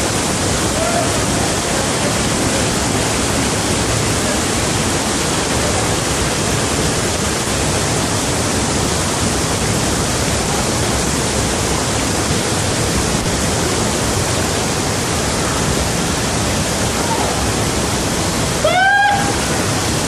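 Loud, steady rush of a waterfall. About a second before the end, a short cry that rises and falls in pitch cuts through it.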